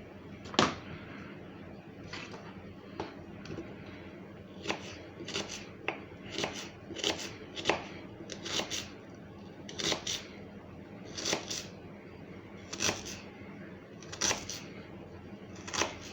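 Kitchen knife slicing an onion into half-rings on a cutting board: sharp cutting strokes at an uneven pace, often in pairs or quick clusters.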